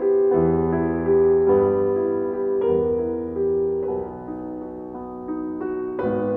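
Background piano music: soft, held chords over a bass line, changing every second or so.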